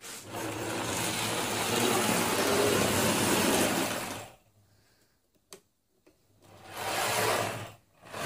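Model train locomotive running fast on its track, its small electric motor giving a steady buzzing hum. It cuts out about four seconds in, runs again briefly after a pause, and starts once more near the end.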